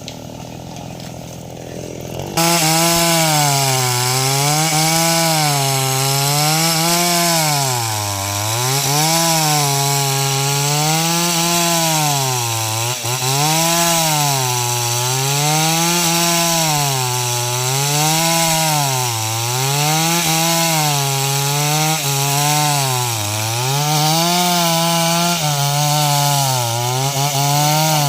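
Stihl MS 381 two-stroke chainsaw cutting into a tree trunk. It comes up to full throttle about two seconds in. After that its engine pitch dips under load and recovers over and over, about once every second and a half.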